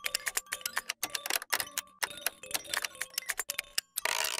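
Rapid, uneven clicking, about ten sharp ticks a second, with a short burst of hiss near the end.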